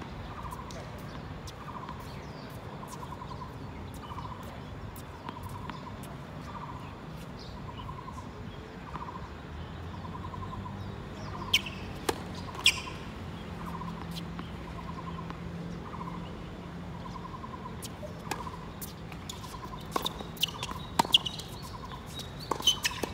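A bird calling over and over in a steady rhythm, a little more than one call a second. A few sharp knocks and squeaks come about halfway through and again near the end.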